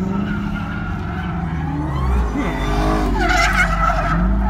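Dodge Hellcat's supercharged 6.2-litre V8 running at low speed, heard from inside the cabin; about two seconds in the engine note rises and the deep rumble grows louder as the car accelerates.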